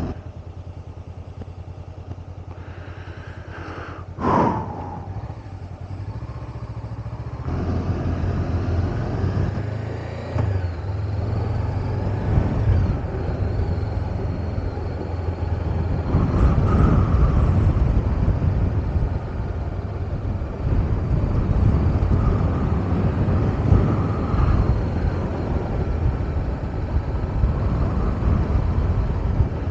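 Motorcycle riding along: a steady low engine hum under rushing wind noise, getting louder about seven seconds in, with a brief sharp sound about four seconds in.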